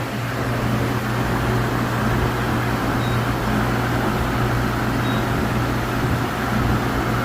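Steady mechanical hum of a CNC milling machine, with a strong low tone under an even whir.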